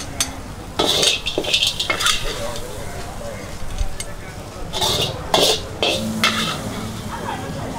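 Metal wok spatula scraping and clanking against a wok, about eight quick strokes in two bunches, as stir-fried conch is scooped out of the pan.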